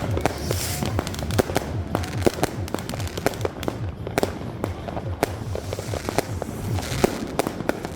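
Fireworks and firecrackers going off all around: many sharp bangs and pops at an uneven pace, several a second, with patches of hissing crackle.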